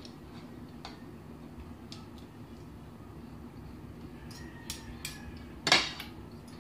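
Forks and spoons clinking against plates and a glass serving bowl while people eat, a few scattered light clicks with one sharper clink near the end, over a low steady hum.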